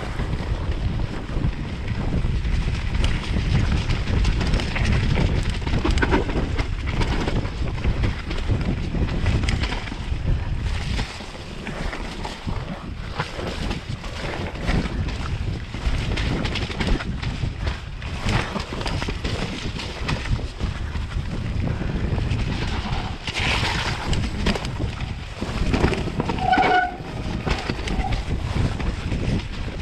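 Mountain bike descending a rough dirt trail at speed: wind rushing over the microphone, tyres rumbling on the dirt, and frequent rattling knocks from the bike over bumps.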